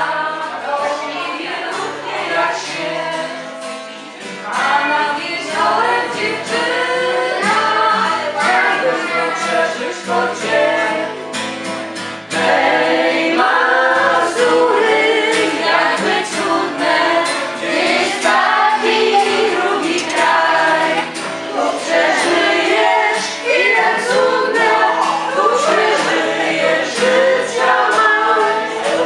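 A group of people singing a song together to a strummed acoustic guitar, a man's voice leading with others joining in. It gets louder about twelve seconds in.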